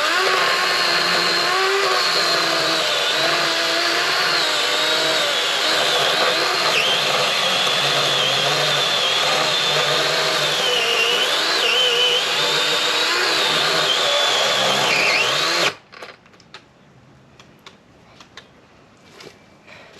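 Small electric chainsaw running under load, cutting into a tree trunk, its motor pitch wavering as it bites into the wood. It cuts off suddenly about four seconds before the end, leaving only faint scattered ticks.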